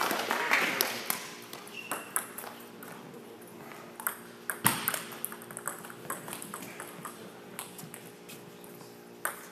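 Badminton rally: irregular sharp cracks of rackets hitting the shuttlecock, the loudest about halfway through, and the squeak of shoes on the court floor, over a steady low hum of the hall. Crowd noise fades out in the first second.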